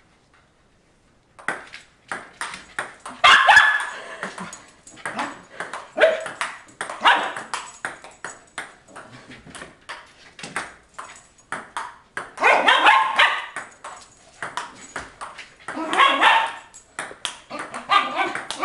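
Table tennis ball clicking steadily off paddles and table in a rally. An American Eskimo dog barks in about five short bursts among the clicks.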